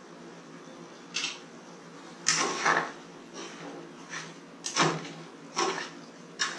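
A metal ladle stirring thick dal in a metal kadai, scraping and knocking against the pan in about five short bursts.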